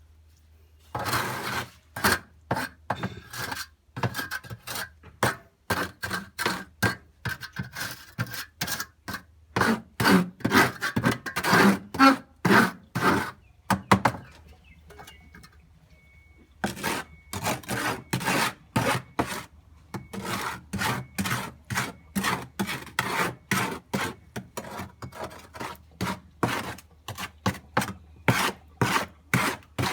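A hand tool scraping through wet concrete mix as it is spread, in repeated strokes about two a second, with a pause of a couple of seconds about halfway through.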